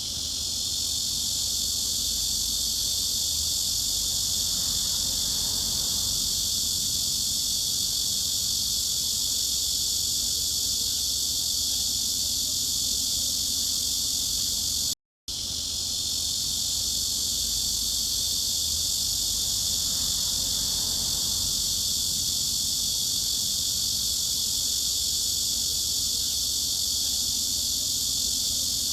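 Cicadas droning in a steady, dense, high-pitched chorus. The recording loops, cutting out for a split second about halfway through where it starts over.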